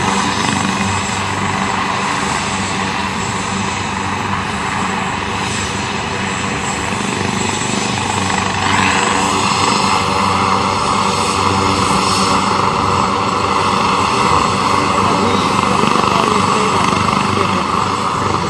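Turbine helicopter running on the ground with its rotors turning: a steady engine whine over the rotor noise, growing a little louder about halfway through.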